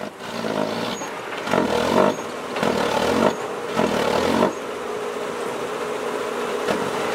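Small six-wheel diesel dump truck revving hard in three surges as it tries to drive out of mud with its wheels spinning and slipping, then holding a steady high run from about four and a half seconds in.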